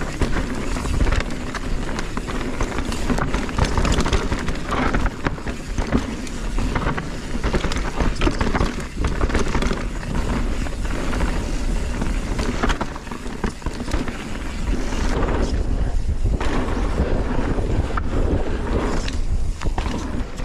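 Mountain bike ridden hard down a rough trail: tyres rolling and skidding over dirt and rocks, with a constant clatter of knocks and rattles from the bike, under a steady low rumble.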